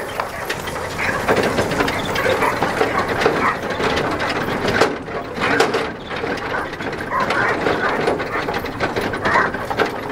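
Wheeled sled-dog training cart rolling on a gravel trail behind a running dog team: a steady, busy rattle and clatter of the cart's frame and wheels over gravel.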